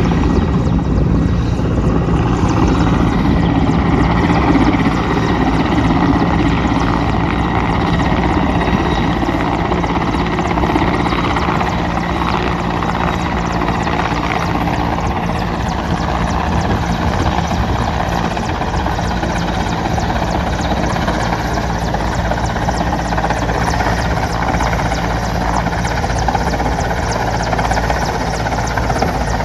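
Air Force helicopter hovering, its rotor and engine running in a loud, steady drone with a constant low hum beneath, easing slightly in the second half.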